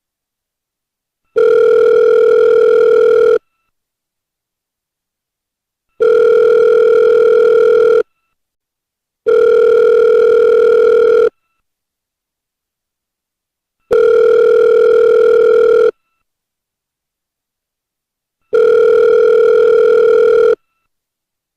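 Ringback tone of an outgoing phone call: a steady tone about two seconds long, sounding five times with silent gaps of one to two and a half seconds between.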